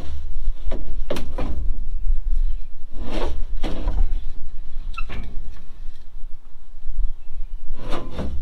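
Steel tarp arm and its set-screw collar being worked loose and slid off the tarp roller shaft of a side dump trailer: a few short scrapes and clunks of metal on metal, the strongest about three seconds in and again near the end, over a steady low rumble.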